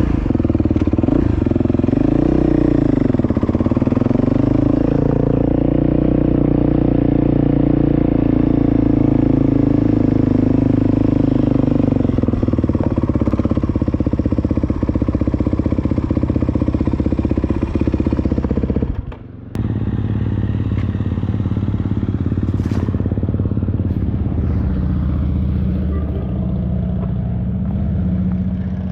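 A motor vehicle engine running steadily, its pitch wobbling briefly a few seconds in, with a short break about two-thirds of the way through.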